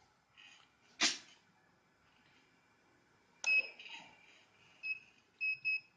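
Keypad beeps from a packing machine's control panel as its buttons are pressed: a click about a second in, then four short, high-pitched beeps in the second half.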